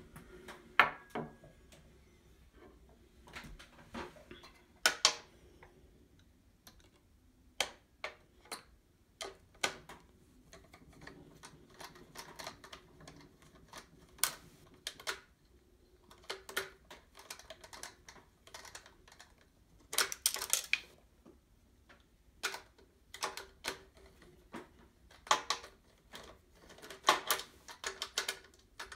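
Small plastic parts and tube fittings of an espresso machine handled by hand during a flow meter swap: irregular sharp clicks and taps, with quick flurries of them about five seconds in, around twenty seconds, and near the end.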